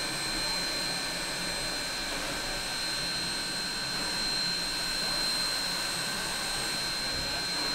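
Sierra Railway #3, a 4-6-0 steam locomotive, standing under steam and hissing steadily, with a thin high-pitched whine held over the hiss.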